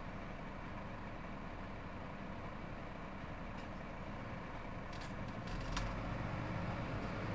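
Mercedes-Benz Citaro C2 city bus's diesel engine idling with a steady low hum. A few light clicks and a deeper rumble come in about five and a half seconds in.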